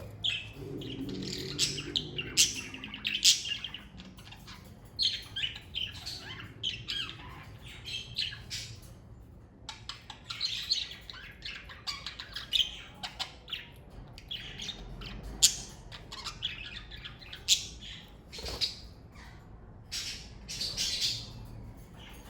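Budgerigars chirping and chattering in quick clusters of short high chirps and squawks, with brief lulls in between.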